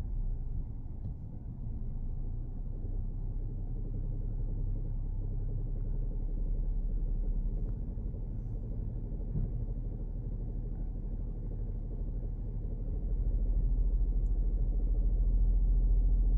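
Low, steady rumble from a Peugeot 3008 with the 1.2 PureTech three-cylinder turbo petrol engine, growing louder about thirteen seconds in: an unexplained noise that the owner is asking about.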